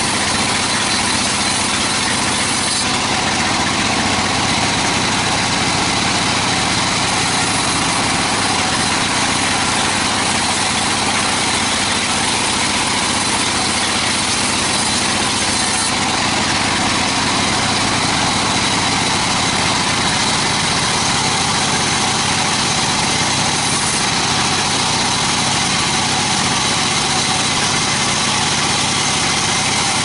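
Large vertical band saw running steadily as a plank is pushed through it and ripped lengthwise, a loud machine noise that holds level without a break.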